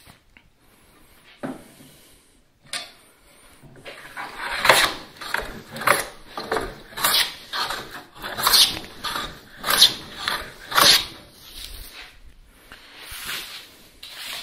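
Stanley hand plane taking shavings off a twisted softwood 2x4: a run of quick planing strokes, about one to two a second, from about four seconds in to about eleven seconds in, after a couple of single knocks. The shavings now come from along the board as it gets flatter.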